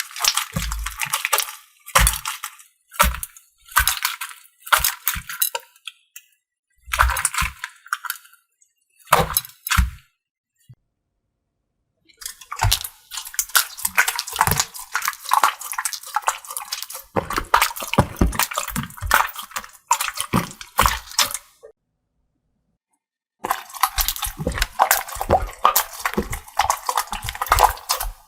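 Slime being squeezed and worked by hand, making wet crackling, popping and clicking sounds in several bursts separated by short silences.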